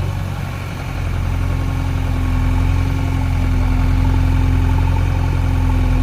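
JCB 3DX backhoe loader's diesel engine running steadily at low revs, with a brief dip in level in the first second and a steady higher hum joining about a second in.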